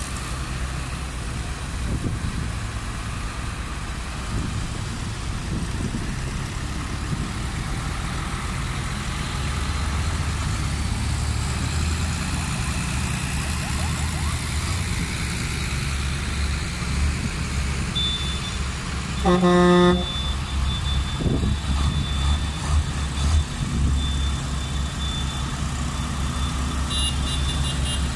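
A convoy of farm tractors driving past, their diesel engines giving a steady low rumble that grows louder as the heavier machines go by. A loud vehicle horn sounds once for just under a second about two thirds of the way through, and a thin high whistle-like tone runs through the later part.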